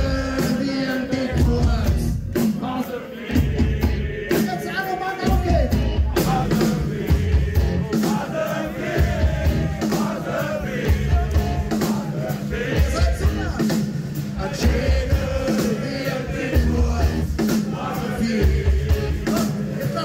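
Rock music with singing over a steady, heavy bass beat.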